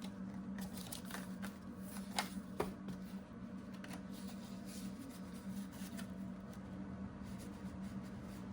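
Rustling and light clicks of paper money and savings sheets being handled at close range, with two sharper ticks a couple of seconds in, over a steady low hum.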